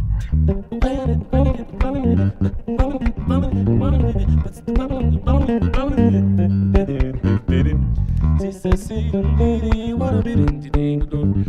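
Two electric basses playing an instrumental groove together: fast plucked and slapped notes over a low bass line, with a long held low note about six seconds in.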